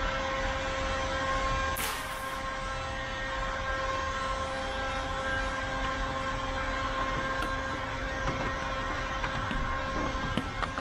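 Steady machine hum made of several constant tones over a low rumble, with a short hiss about two seconds in.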